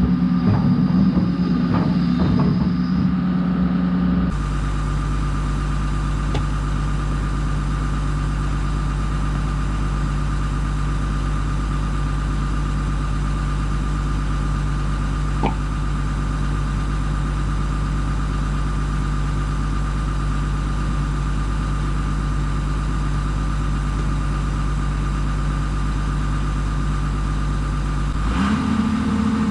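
An engine idling steadily. Its sound changes abruptly about four seconds in, then holds even.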